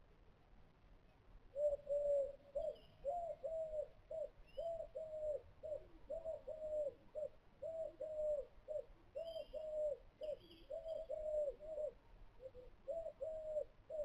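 Pigeon cooing in a long quick series of short notes, about two a second, starting a couple of seconds in. A few faint high chirps from a small bird sound now and then.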